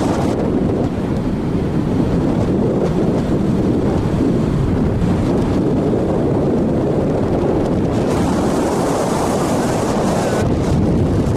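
Wind rushing over the microphone of a moving motorcycle, a steady low rumble, with the motorcycle's running lost in it. A brighter hiss joins in for a couple of seconds near the end.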